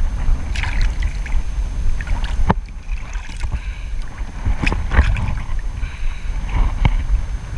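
Small waves slapping and splashing right at the microphone in irregular sharp splashes, over a steady low wind rumble on the microphone.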